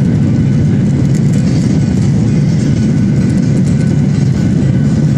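Steady, deep cabin noise of a Boeing 737 climbing after takeoff, heard from a seat over the wing: the jet engines at climb thrust blended with rushing airflow.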